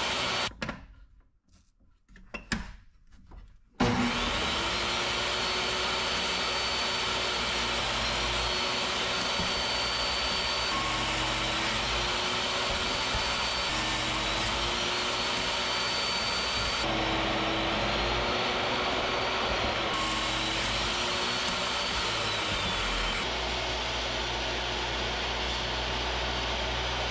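Table saw running and ripping a thick board of sapele mahogany, a steady loud machine noise whose tones dip and recover now and then as the blade works through the wood. The sound drops to near silence for about three seconds near the start, then comes back with a sudden loud burst.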